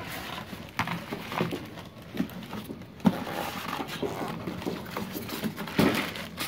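Unpacking and handling noises: a cardboard box being moved and plastic wrapping around the welding machine rustling, with scattered knocks, the sharpest about three seconds in.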